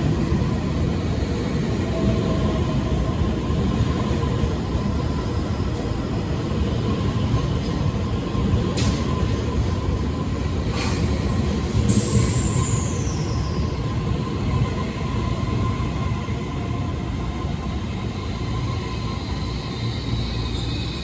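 Train moving along the platform track with a steady low rumble of wheels and running gear. Two sharp clicks come about nine and eleven seconds in, and then a high-pitched wheel squeal slides downward over about two seconds.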